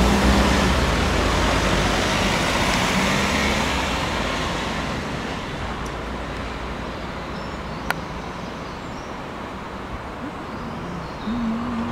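A road vehicle going past close by and fading away over the first few seconds, its engine hum heard low down, leaving quieter steady traffic noise. A single sharp click about eight seconds in.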